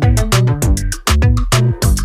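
Background music with a steady beat of about four drum hits a second over a deep, stepping bass line.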